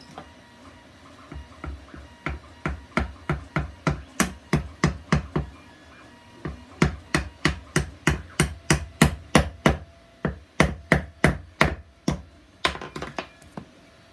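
Mallet tapping on a wooden block to drive the square pins of a 3D-printed plastic puzzle piece into their square holes: a rapid series of sharp taps, about three a second, in three runs with short pauses, growing louder within each run.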